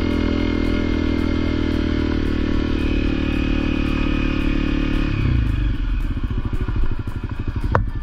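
Honda CRF250L's single-cylinder engine running steadily under way, then about five seconds in the note drops to a lower, choppier beat.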